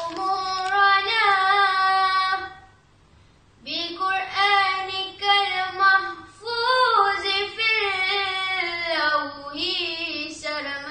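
A girl singing nazam (Arabic religious verse) solo and unaccompanied, in long held notes with wavering ornaments. She breaks off for about a second near three seconds in, then starts a long new phrase.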